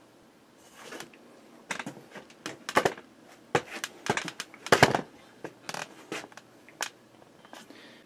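Irregular sharp clicks and taps, about a dozen spread over several seconds, with a brief rustle near the start, like handling noise.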